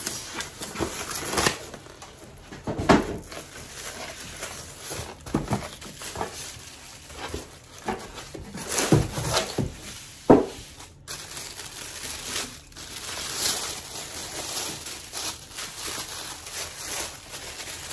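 Unboxing handling: a white foam packing block squeaking and scraping as it is pulled apart, and a plastic bag crinkling as the piece is unwrapped. Sharper knocks stand out about three and ten seconds in.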